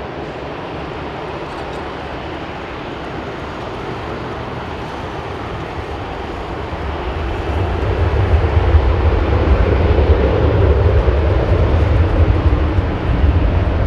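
Airbus A380-841 airliner's four Rolls-Royce Trent 970 turbofan engines running up for takeoff. The jet noise grows steadily louder and deeper about halfway through as thrust builds.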